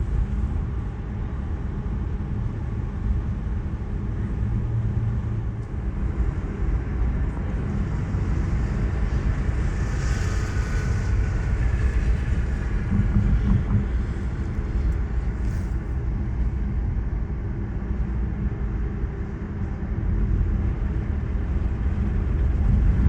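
Car running down the road, heard from inside the cabin: a steady low rumble of engine and tyre noise, with a brief rise of hiss about halfway through.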